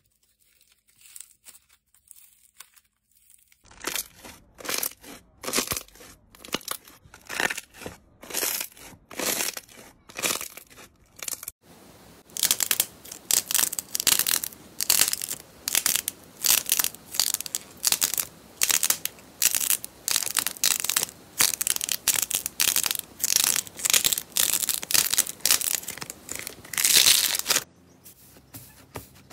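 Soft slime being squeezed and pressed by hand, giving a rapid series of short crackles and pops as trapped air escapes. It is faint for the first few seconds, then runs steadily, closer together and louder from about twelve seconds in.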